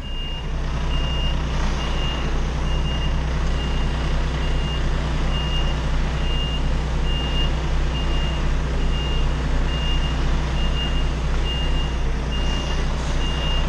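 A truck's reversing alarm beeps steadily at one high pitch over the low, steady running of the truck's engine as the tractor-trailer backs up.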